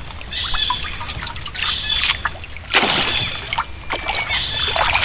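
Water trickling and sloshing, with short high chirps recurring every second or so and a louder rush of noise about three seconds in.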